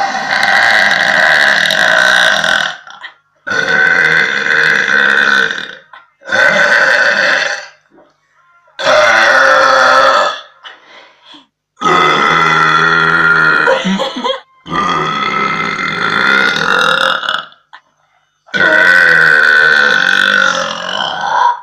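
A young woman burping loudly, seven long, drawn-out burps one after another, each lasting about one and a half to three seconds with short pauses between.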